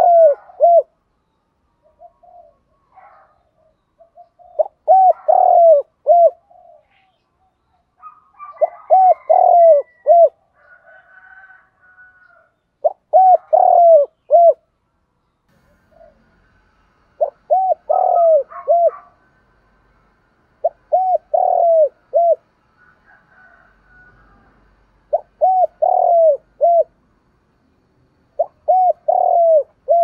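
Spotted dove cooing its song: a phrase of several low, hollow coos repeated about every four seconds, eight phrases in all.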